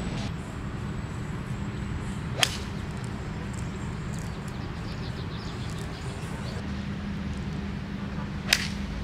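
Two golf shots, each a single sharp crack of a club striking the ball, about six seconds apart, over a steady low hum.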